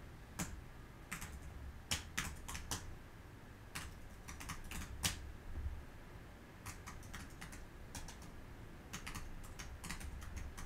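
Typing on a keyboard: light clicks in short, irregular runs separated by pauses.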